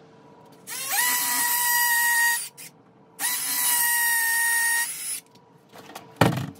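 Cordless drill boring two holes into a plastered wall: two runs of about two seconds each, the motor spinning up quickly and then holding a steady whine. A single loud thump follows near the end.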